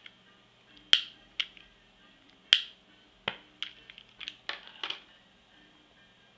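Piezo igniter of a long-nozzle lighter clicking about a dozen times: three loud clicks spaced a second or more apart, then a quicker run of smaller clicks, while lighting the small flame of a hydrogen torch fed by an electrolyzer.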